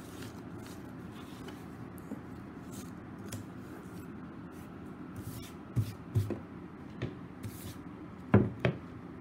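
Hands smoothing a taped paper template on a hard plastic case lid, with faint rustles and light taps over a low steady hum. Near the end a black plastic mounting plate is put down on the lid: two sharp knocks in quick succession, then one more.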